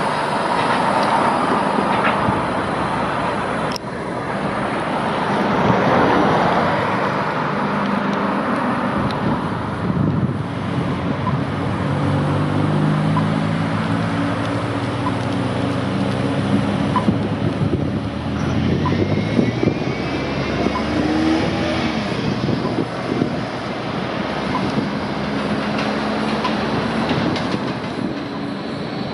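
Road traffic going past beside the tramway while a Bombardier Flexity 2 light rail tram approaches and draws up to the stop, with low humming tones that rise and fall as vehicles pass.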